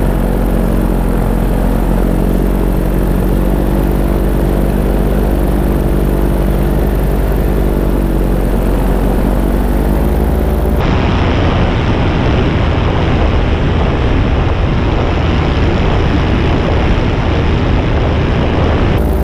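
Paramotor engine and propeller running steadily in flight. About eleven seconds in, the sound switches abruptly to a rougher, noisier drone with wind, then switches back near the end.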